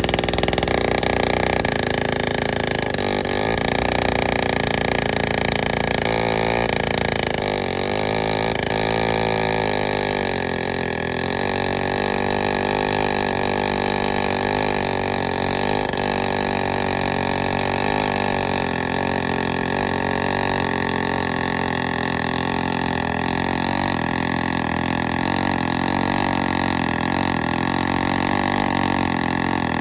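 Vintage two-stroke chainsaw engine running, its speed wavering up and down for the first ten seconds or so and then holding fairly steady.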